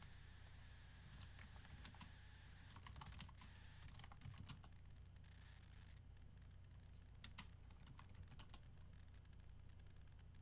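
Near silence: a faint steady low hum with scattered faint clicks, in two clusters about three to five and seven to eight seconds in.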